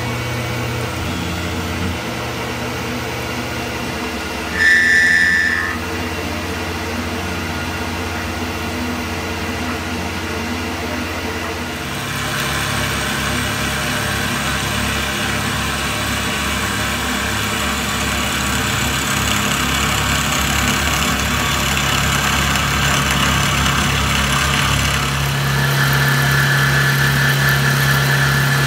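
Tormach PCNC 1100 CNC mill running, its end mill cutting an aluminium billet under flood coolant: a steady machine hum with a brief louder high tone about five seconds in. The sound shifts about halfway through, and near the end a steady high-pitched cutting whine joins in.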